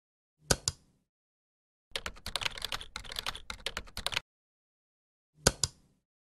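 Computer keyboard typing: a quick run of keystrokes lasting about two seconds. Before it comes a mouse click as a quick pair of clicks about half a second in, and another such pair comes near the end.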